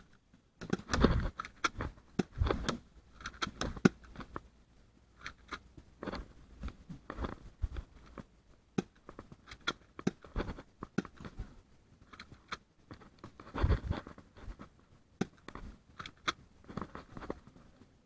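Irregular clicks, knocks and rustling, like footsteps and handling of clothing and gear, loudest about a second in, at about two and a half and four seconds, and again near fourteen seconds.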